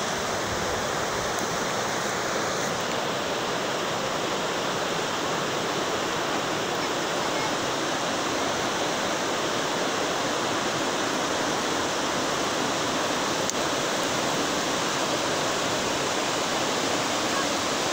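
Shallow river rapids rushing over rocks and gravel bars: a steady, unbroken rush of water.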